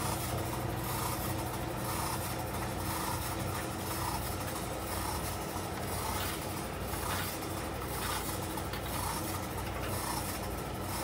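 Costway 1700W portable tumble dryer running: a steady motor hum with the drum turning and recurring louder noisy swells. It is running without heat, blowing cold air, which the owner takes for a heating fault.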